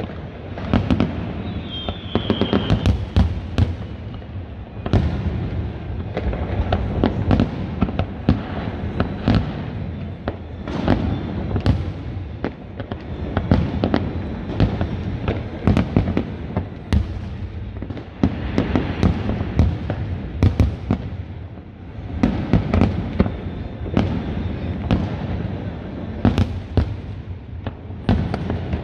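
Aerial fireworks display: shells bursting in many sharp bangs in quick, irregular succession over a steady low rumble.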